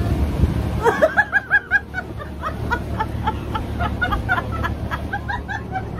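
A woman laughing: a rapid run of high giggles that starts about a second in and gradually tails off.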